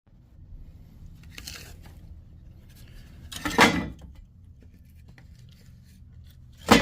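Handling noises over a steady low rumble: a brief rustle, a louder scraping clatter about three and a half seconds in, and a sharp knock near the end. These are likely wood and metal being moved in and around a metal toolbox grill.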